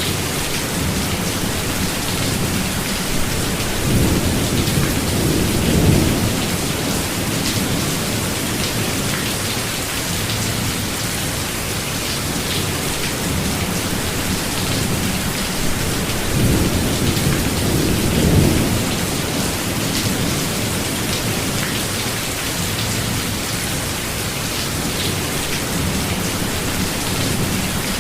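Steady rain falling in a forest, with two low rolls of thunder: one building about four seconds in, another about sixteen seconds in.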